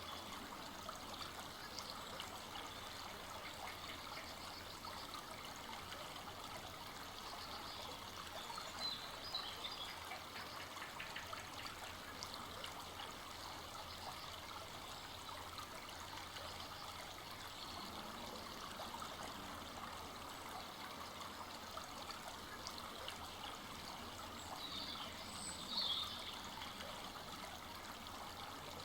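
Full-flowing forest brook trickling and babbling steadily, with two brief high chirps, one about nine seconds in and a louder one near the end.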